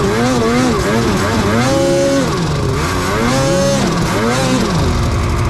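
Snowmobile engine revving up and down over and over as the throttle is worked, then easing to a steadier, slowly falling pitch near the end.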